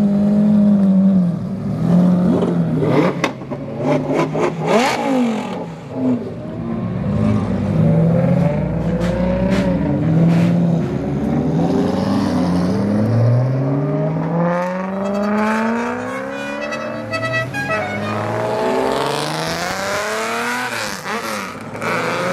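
Loud performance car engines revving and accelerating away one after another, their pitch rising and falling through the gears. First a Lamborghini Aventador's V12, with a cluster of sharp exhaust cracks a few seconds in, then a widebody Mercedes coupe's engine.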